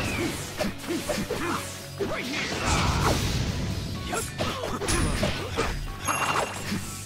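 Anime fight-scene soundtrack: swishing whooshes and sharp hits and crashes over music.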